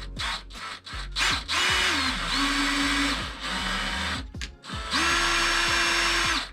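Power drill driving screws to fix a closet wall rail, in three bursts of the motor. The pitch drops partway through the first burst as the screw bites, and the last burst is the longest.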